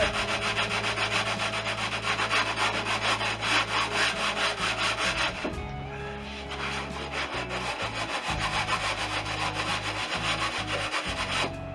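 Fine sanding board rubbed back and forth along a cured fibreglass edge in quick, even strokes, taking off a small lip of glass fibre. The strokes pause briefly a little past halfway, then go on more softly.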